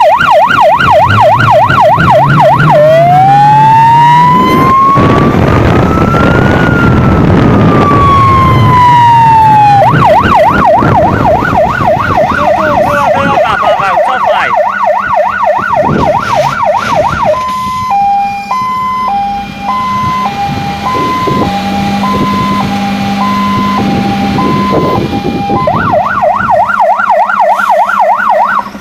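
Fire engine siren (MAN GBA) on an emergency run, cycling through its modes: a fast warble, then one slow wail rising and falling, the fast warble again, then a two-tone hi-lo for several seconds, and the fast warble again near the end.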